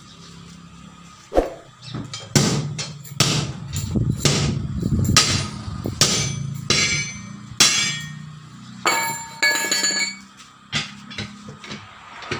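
A hammer striking the steel of a truck wheel, over a dozen blows at an irregular pace, some coming in quick runs, each one ringing like metal, as the tyre is worked off the rim.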